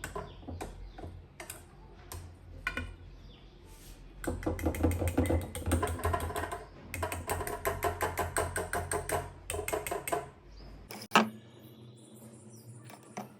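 A kitchen utensil clicking rapidly and rhythmically against metal cookware, in bursts of several strokes a second.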